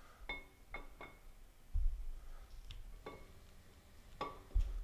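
Billet camshaft clinking against the cam bearings as it is slid into a Ford 302 small-block: about five light metallic clicks, each with a short ring, and two dull low thumps.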